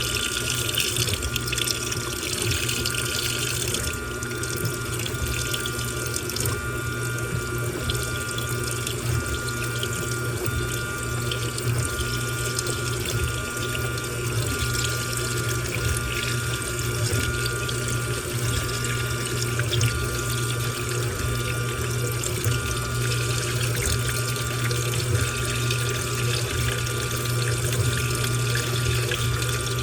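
Washing machine running with water rushing and sloshing inside the drum over a steady motor hum, with a few faint steady whining tones.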